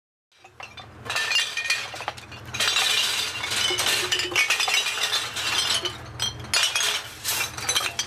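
Glass bottles clinking and rattling against each other in a rapid, continuous jangle, over a steady low hum.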